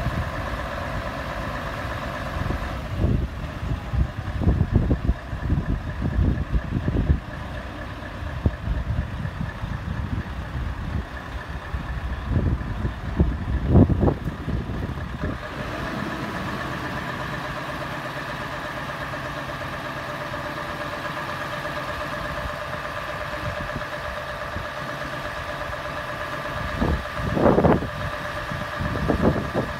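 Truck engine running to drive a Fassi lorry-loader crane's hydraulics, with a steady whine that changes pitch about halfway through as the crane swings a 40-foot container. Gusts of wind buffet the microphone at times, mostly in the first half and near the end.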